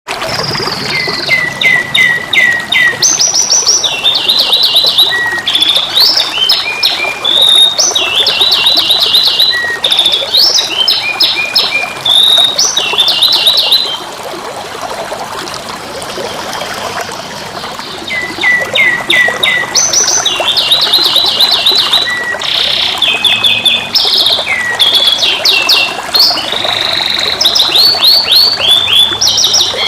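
Canary singing in fast trilled rolls of repeated notes, switching from one phrase to the next; the song breaks off for a few seconds about halfway through, then starts again.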